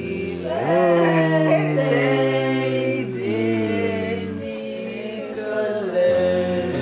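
Background music: a slow sung melody with long held notes over sustained low notes.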